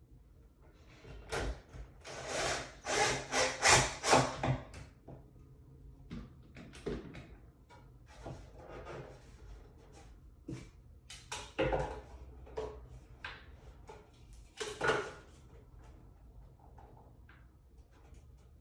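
Wooden boards rubbing and scraping against each other as a shelf divider is pushed and shifted into place, with a run of rough scraping strokes in the first few seconds and a few shorter scrapes and knocks later.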